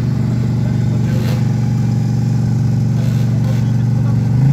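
Off-road vehicle engine running at a steady pitch, briefly louder near the end.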